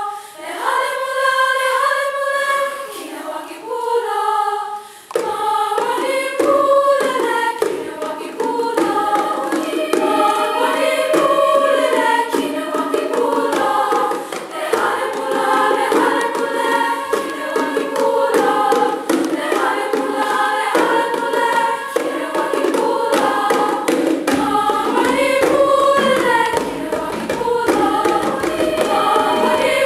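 Women's choir singing a sustained choral piece with grand piano accompaniment. The sound is sparse for the first few seconds, then grows fuller and denser from about five seconds in.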